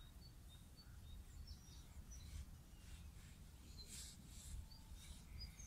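Faint outdoor background: a steady low rumble with small birds giving short, high chirps now and then.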